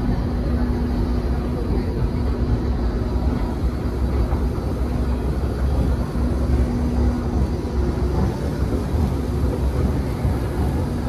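Metro station escalator running: a steady low rumble with a humming tone that comes and goes.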